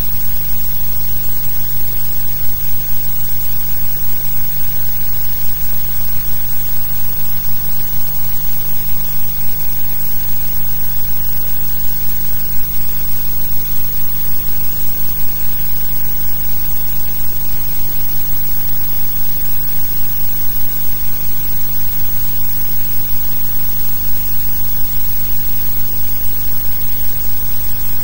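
Steady, loud low hum under an even hiss, with a high steady whine above: the noise of a blank soundtrack on a newsreel that was filmed without sound.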